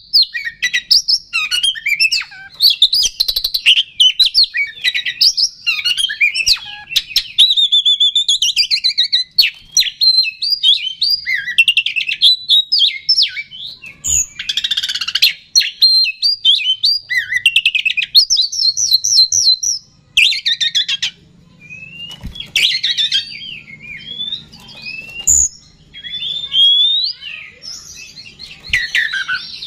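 Oriental magpie-robin singing a loud, fast, varied song of whistles and rapid trills with only brief pauses: the vigorous full song that keepers use as a lure to stir other magpie-robins. A few knocks come through between phrases.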